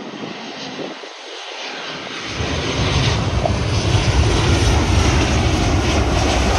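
Southwest Airlines Boeing 737 jet passing low overhead on landing approach: a rushing engine noise that builds, then turns into a loud, deep rumble about two seconds in.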